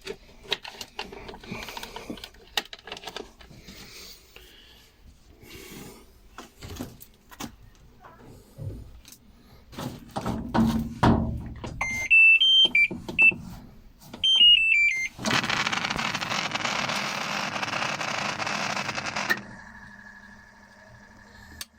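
LG washing machine powered up for a test: clicks and knocks of handling, then its control panel plays short stepped electronic beep melodies. A loud, even rushing noise follows for about four seconds, then cuts to a quieter steady hum.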